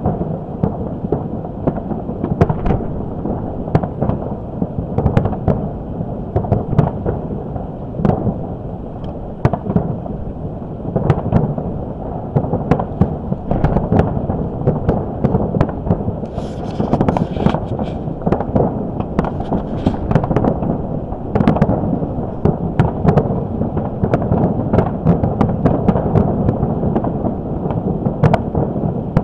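A fireworks display going off without a break: many booms and bangs following close on one another and merging into a continuous rumble, with wind blowing across the microphone. A brief high hissing crackle comes a little past halfway.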